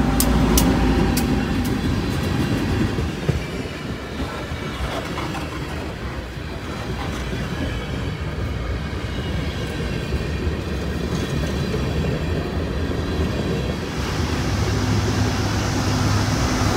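Freight train of tank cars rolling past close by: a steady rumble of steel wheels on rail, with sharp clicks over the rail joints in the first seconds. Near the end the diesel engine of a trailing locomotive grows louder as it approaches.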